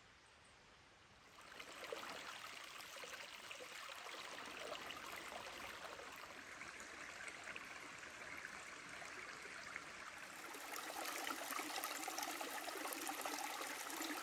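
Shallow rocky river babbling over stones. It comes in about a second in and grows louder near the end.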